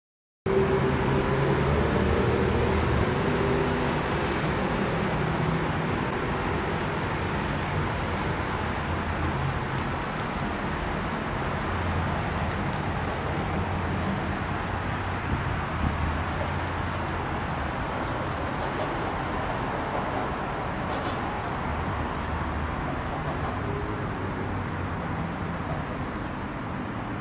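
Steady wash of city road traffic, many cars passing on the streets below, with a low engine hum that is strongest in the first few seconds.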